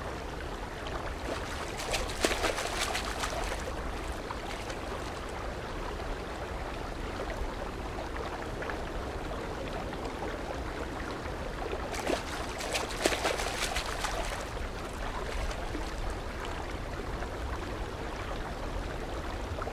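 Steady wash of water, broken twice by short rough bursts of noise, about two seconds in and again around twelve to fourteen seconds in, as a hooked mulloway thrashes at the surface.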